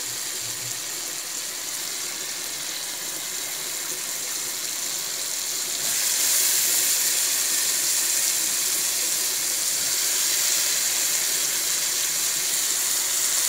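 Onions, tomatoes and pre-boiled mushroom pieces sizzling in hot oil in a pan, a steady hiss that grows louder about six seconds in, once the mushrooms are in.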